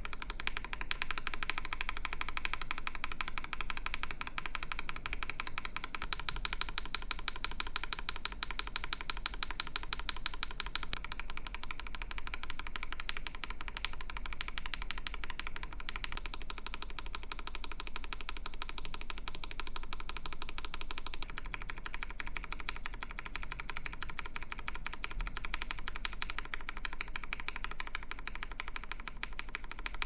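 Fast, continuous typing on a 65% mechanical keyboard with lubed tactile switches: T1 switches for the first half, then lubed Outemu Sky switches from about halfway through.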